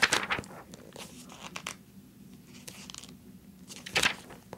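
Magazine pages being turned by hand: a loud papery swish at the start and another about four seconds in, with lighter paper rustles in between.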